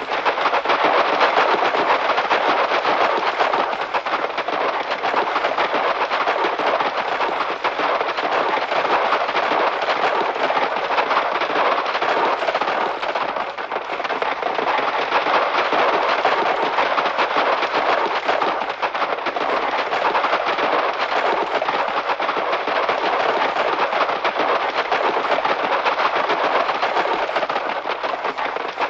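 A posse of many horses galloping together: a dense, unbroken clatter of hoofbeats at a steady level, from an old sound-effects recording with a dull top end.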